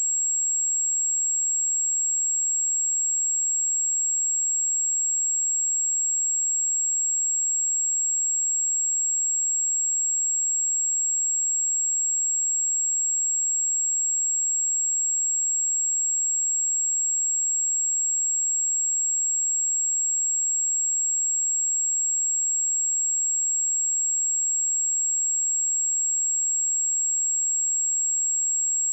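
A pure 7612 Hz sine-wave test tone, a single steady high-pitched whistle held at constant pitch and level.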